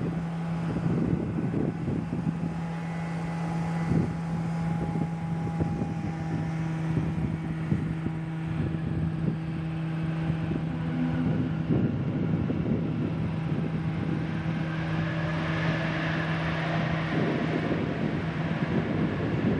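Airbus A220 airliner's geared turbofan engines during touchdown and the landing roll, a steady low hum under gusty wind buffeting on the microphone. About fifteen seconds in, a broader rushing engine sound swells and then eases.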